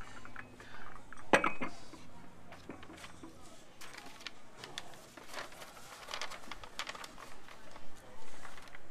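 Light clicks, taps and rustles of small objects being handled at a table, with one sharper knock about a second and a half in.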